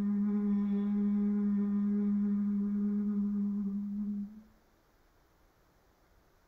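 A woman's low-pitched, closed-mouth hum of Bhramari (humming-bee) breathing, held at one steady pitch on the exhale and ending about four seconds in.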